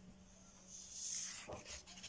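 A page of a paperback coloring book being turned: a paper swish about halfway through, ending in a short tap as the page settles.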